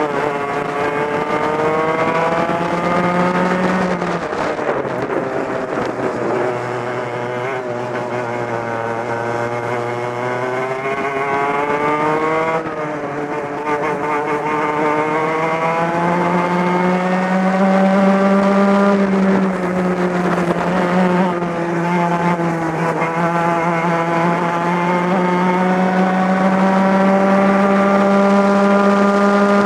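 Two-stroke racing kart engine heard onboard at racing speed. The revs climb steadily along the straights and drop sharply when the driver lifts for corners, about four seconds in and again about twelve seconds in, then climb through one long rise.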